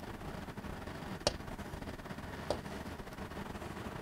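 Chalk tapping against a blackboard while axes are drawn: two sharp clicks about a second and a quarter apart.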